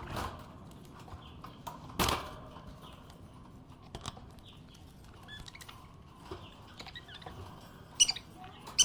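Budgerigar chirping in short, soft calls, with two louder, shrill chirps near the end. A few sharp knocks sound in between, the loudest about two seconds in.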